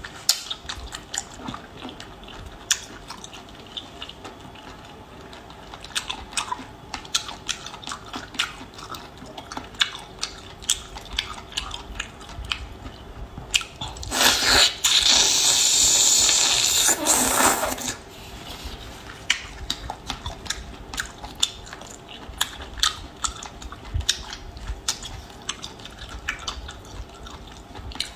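Close-up eating sounds: chewing and biting seafood, with many small wet clicks and crunches. About halfway through, a loud hiss lasts about four seconds.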